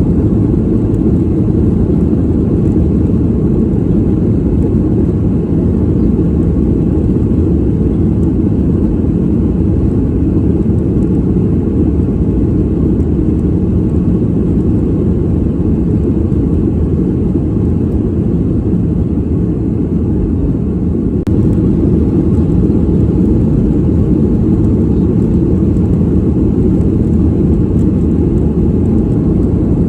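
Airplane passenger-cabin noise in flight: a steady, deep rumble with little high end. It rises slightly in level about two-thirds of the way through.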